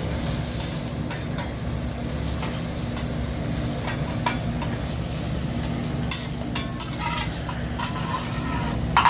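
Food sizzling on a hot hibachi griddle while metal spatulas scrape and clack against it: a cluster of sharp clacks about six to seven seconds in and a louder one near the end, over a steady low hum.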